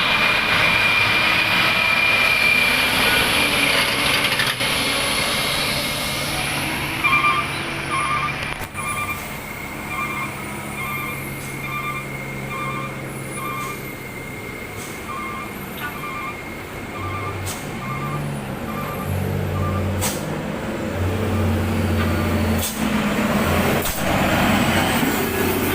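Diesel dump trucks in a queue. A long air hiss comes first, then a reversing beeper sounds at about two beeps a second while a truck engine idles, and near the end the engine revs up and runs louder.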